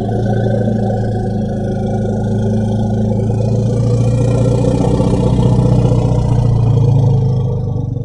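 African bush elephant giving one long, low rumble call, swelling a little louder towards the end.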